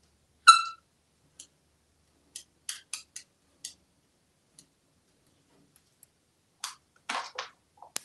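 African grey parrot gives one short, high chirp, then a run of light clicks and taps as it clambers onto the edge of an open wooden drawer, and a short scuffle near the end as it climbs up onto the counter.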